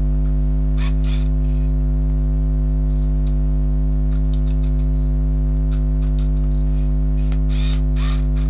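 A steady electrical buzz, loud and unchanging throughout. Over it come four short high camera beeps a second or two apart, and a few brief clicks and rustles of the camera being handled.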